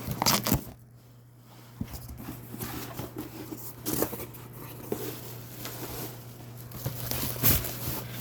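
Packaging being handled and opened by hand: irregular rustling with light clicks and knocks, over a steady low hum.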